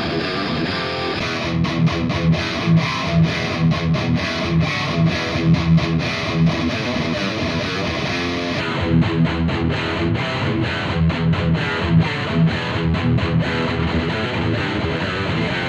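Electric guitar riff played through a Mesa Boogie Triaxis preamp into Two Notes Torpedo Wall of Sound 4x12 cabinet simulation, with a virtual Shure SM57 and Sennheiser MD421 blended. It is a riff of repeated low notes about twice a second. The tone changes as the simulated cabinet is switched, about a second in and again about eight and a half seconds in, from the RackHero to the StrongBack 4x12.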